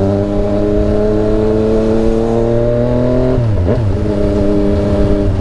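Yamaha MT-09's three-cylinder engine heard from the saddle, its revs climbing slowly under way. About three and a half seconds in the pitch drops sharply, then the engine runs steady at lower revs.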